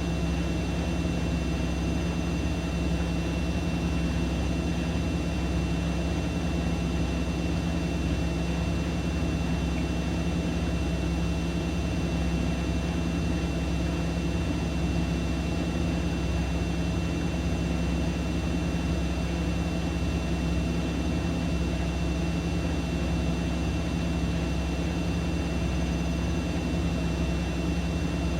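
Siemens Siwamat iQ 716 washing machine with its drum spinning steadily: an even motor hum and whir with a thin constant high whine, unchanging throughout.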